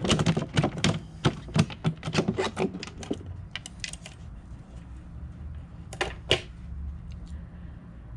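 A quick run of sharp plastic clicks and taps as an RC boat's hatch is unlatched and lifted off the hull, then two louder clicks about six seconds in.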